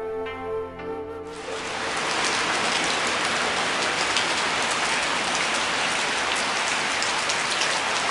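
A flute tune fades out in the first second or so. Then a steady hiss of heavy rain comes in and runs on.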